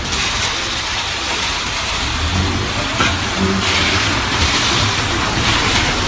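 Diesel engine of a self-loading concrete mixer truck running steadily under work, a low rumble with a steady hiss above it that grows brighter in the second half; a short click about three seconds in.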